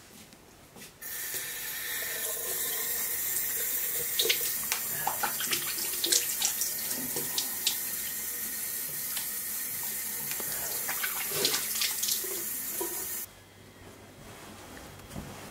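Water tap running into a sink: turned on about a second in and shut off abruptly near the end, with irregular splashes as someone washes under the stream.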